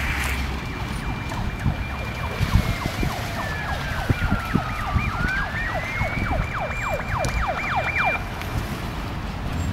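Emergency vehicle sirens sounding, heard from a distance. One holds a high steady tone, slides slowly down and back up about five seconds in, while another sweeps rapidly up and down several times a second. Both cut off about eight seconds in, over a low background rumble.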